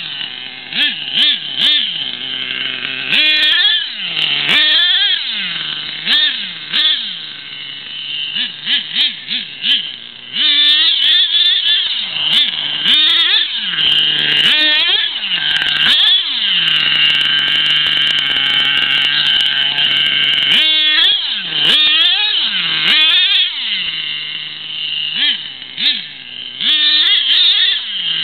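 Stock .25 nitro engine of an HPI Savage 25 radio-controlled monster truck revving up and down in repeated throttle bursts as it is driven hard. About halfway through it holds a long steady high rev for several seconds, then goes back to quick rising and falling blips.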